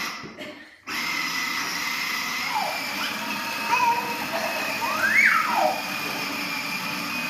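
Battery-powered ride-on toy motorcycle's small electric motor and gearbox whining steadily as it drives, with a few short high children's squeals partway through. The sound cuts out for a moment near the start, then resumes.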